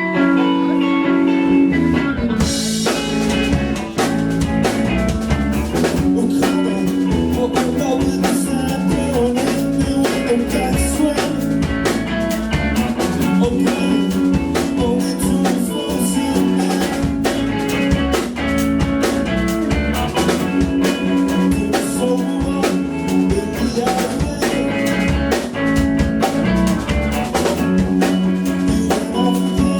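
A live band playing, with electric guitar over a steady drum-kit beat; cymbals come in about two seconds in.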